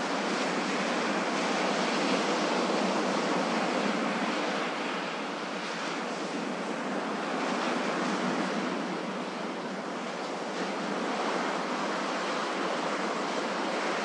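Ocean surf washing onto a beach: a steady rushing wash that slowly swells and eases, louder for a few seconds early on and again around the middle.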